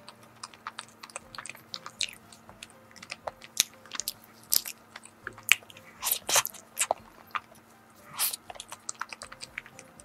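Close-miked eating of a soft cream-filled glutinous rice cake (chapssaltteok) with yellow-cheese cream: bites and chewing, heard as many short, irregular mouth clicks, with a few louder bites spread through.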